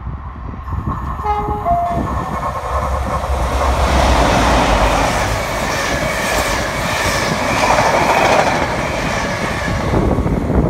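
Diesel passenger train giving a brief two-tone horn as it approaches, then passing through close by, loud, with its wheels clattering over the rail joints.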